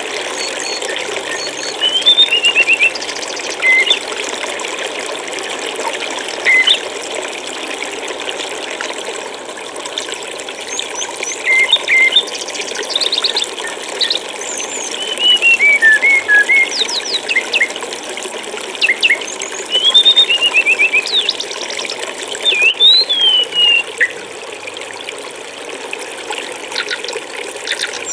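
Steady rush of flowing stream water, with small songbirds calling over it in short bouts of chirps and quick trills that come and go throughout.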